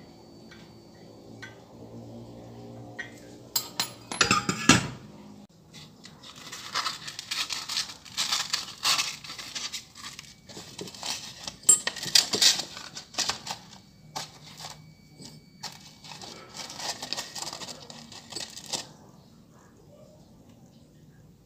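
A sharp clatter of metal clutch parts about four seconds in. Then repeated scratchy, crinkling strokes of 240-grit abrasive cloth being handled in a scooter's CVT clutch bell, stopping near the end.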